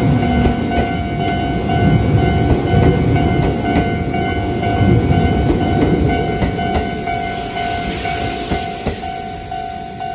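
Japanese level crossing warning bell ringing its repeating 'kan-kan' about twice a second while an Izuhakone Railway train runs over the crossing. The train's wheels rumble and knock on the rails, loudest in the first half and fading away near the end as the bell keeps ringing.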